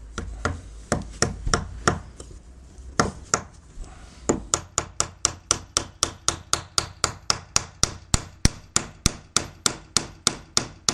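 A hammer driving a wooden dowel into a timber joint: a few scattered blows, then from about four seconds in a steady run of quick blows, about four a second.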